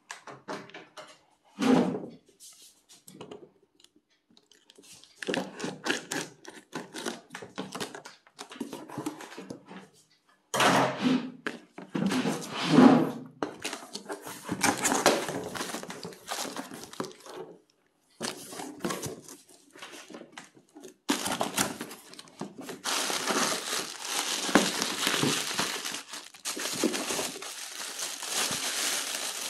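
Plastic shrink-wrap being torn and pulled off a cardboard box, in irregular rustling bursts with the box being handled. From about two-thirds of the way through, a long stretch of steady crinkling as the plastic packaging inside the opened box is handled.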